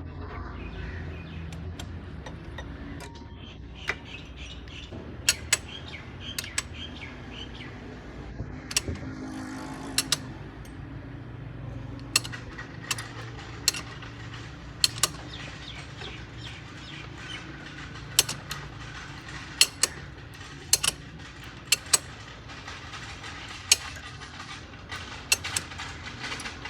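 Sharp metallic clicks and clinks of hand tools on metal parts at irregular intervals, some much louder than others, over a steady low hum.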